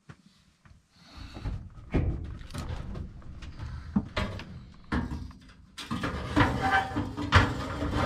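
Replacement dryer heating element, a sheet-metal frame with coiled wire, being shoved up into the Whirlpool dryer's metal heater housing: sheet metal scraping and clattering, with several sharp knocks. It starts about a second in and gets louder and busier near the end.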